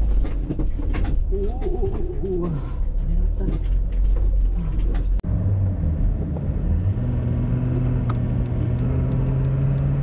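Camper van driving, with a low rumble of road and engine noise heard from inside the cab. Over the first half some wavering pitched tones ride on top. After a short break, a steady engine drone holds from about seven seconds in.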